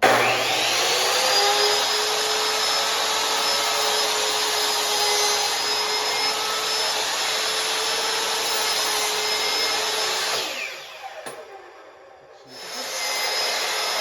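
Electric drill running at speed, boring a hole in the birdhouse wood. It spins up at the start with a steady high whine and runs for about ten seconds, then winds down and stops. After a short pause it starts again near the end.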